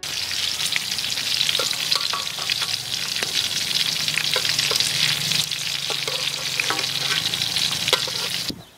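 Meat and eggplant pieces frying in oil in a wide metal wok: a steady sizzle, broken by the clicks and scrapes of a metal spatula against the pan as pieces are turned and lifted out. The sizzle cuts off suddenly near the end.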